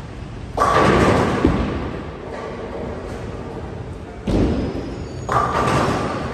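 Tenpin bowling pins crashing as balls hit them, three separate crashes about half a second, four and five seconds in, each clatter dying away over a second or two, over the steady din of a bowling alley.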